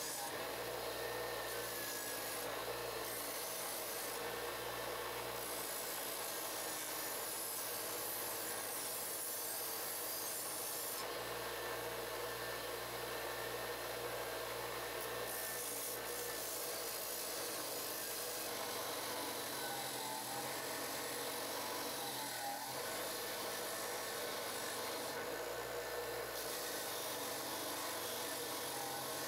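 Bench grinder with a wire wheel running steadily, and the rasping scrub of a rusty steel sickle blade pressed against the spinning wire brush, stripping off the rust. The scrubbing comes and goes several times as the blade is pressed on and lifted off.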